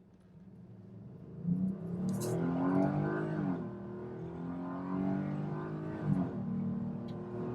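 The 3.6 L V6 of a 2018 Jeep Grand Cherokee fitted with an AFE Momentum GT cold air intake, accelerating hard from a standstill in a 0-to-60 run. The engine note builds and climbs in pitch, drops at an upshift about three and a half seconds in and again about six seconds in, then climbs again.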